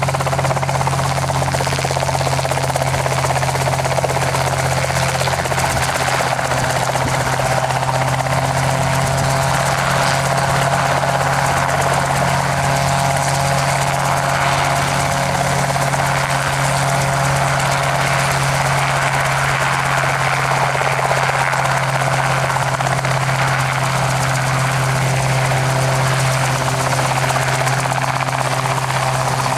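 RotorWay Exec kit helicopter's piston engine and two-bladed rotor running steadily as it hovers low over the ground, a constant loud drone with no change in pitch.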